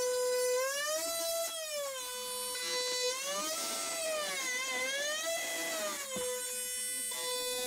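Milwaukee FUEL cordless oscillating multi-tool cutting through drywall: a steady high buzzing whine whose pitch rises and falls back three times as the blade's load changes, with a brief click a little after six seconds.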